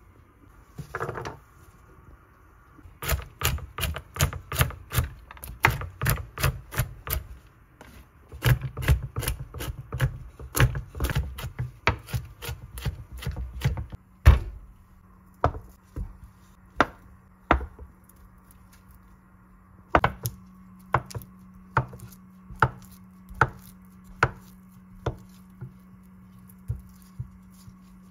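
A chef's knife chopping on a wooden cutting board: quick runs of strokes about three a second through walnuts, then slower, spaced single cuts, as through a block of white cheese.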